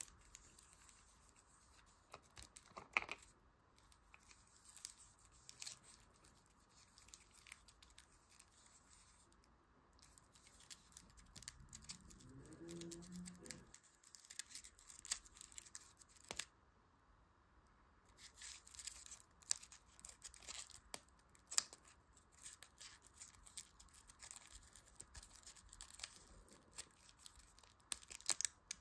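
Foil wrapper of a Kinder Überraschung Maxi chocolate egg crinkling and tearing as fingers handle it and peel it open: quiet, crisp crackles in irregular spells with short pauses.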